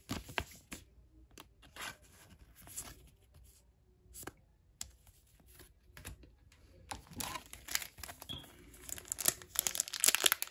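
A few light taps and shuffles of trading cards being handled, then from about seven seconds in the crackly crinkling of a foil Pokémon booster pack wrapper being picked up and torn open, growing louder near the end.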